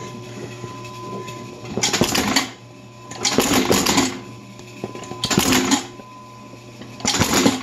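Stanley Bostitch FC95EC electric carton stapler cycling its head four times, each a burst of rapid mechanical clatter lasting under a second as staples are driven into a cardboard box, with a steady hum underneath.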